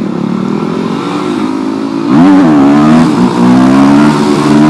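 Single-cylinder supermoto motorcycle engine running under way, its pitch briefly rising and falling about two seconds in as the throttle is blipped, then running louder and steadier.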